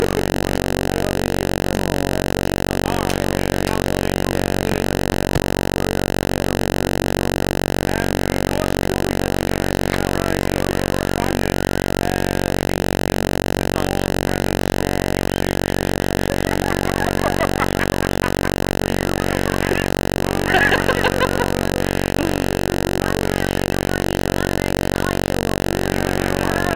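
A steady, unchanging buzzing drone with many even overtones. Faint voices come through briefly about two-thirds of the way in.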